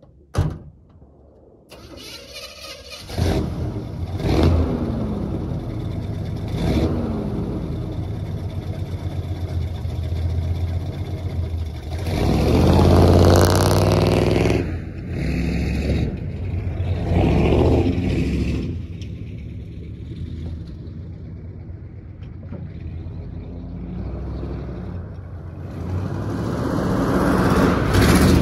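A short thump, then the 1973 Chevy K20 pickup's engine starting about two seconds in and revving. The truck then pulls away with loud swells of engine and tyre noise as it accelerates past, and the sound builds again near the end as it comes back.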